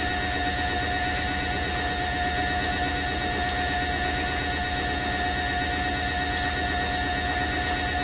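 Hoover A3308 Computer Control 1100 washing machine spinning its drum at a steady speed during the final spin, with a constant high-pitched motor whine over a low even rumble.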